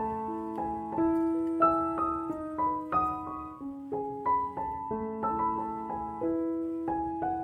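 Background piano music playing a slow melody of struck notes that ring on and fade.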